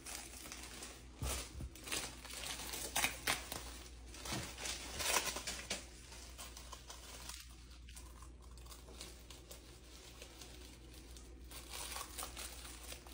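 Clear plastic packaging bag crinkling and rustling as it is handled and pulled open, in quick crackles that are busiest in the first five seconds and fainter after that.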